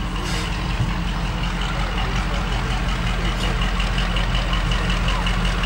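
Class 35 Hymek diesel-hydraulic locomotive's Maybach MD870 V16 diesel engine running steadily as the locomotive rolls slowly into the platform, the rumble growing slightly louder as it approaches.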